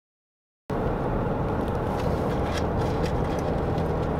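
Steady road and engine noise heard inside a car travelling at highway speed, cutting in abruptly after a moment of dead silence.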